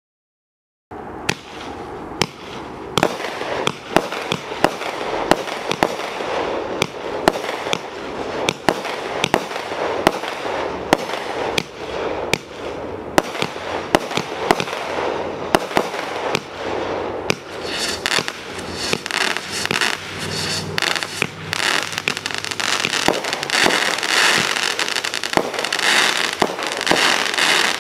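Brothers 'Wild West' 200-gram fireworks cake firing. About a second in, sharp shots start coming one or two a second over a continuous rushing noise. After about two-thirds of the way through they give way to dense crackling from the cake's crackling-tail, crackling-bouquet shots.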